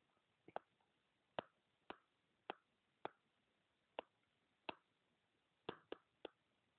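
Stylus tip tapping on a tablet screen while handwriting: about ten short, sharp clicks at an uneven pace, with near silence between them.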